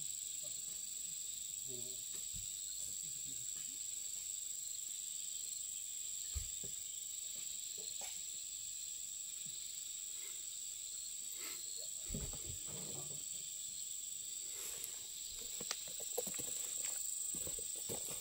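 Steady, high-pitched drone of insects chirring, with a few faint knocks now and then.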